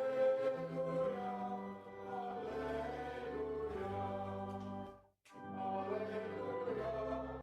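A hymn sung by voices with sustained instrumental accompaniment, held chords moving from note to note. The sound breaks off completely for a moment about five seconds in, then the music resumes.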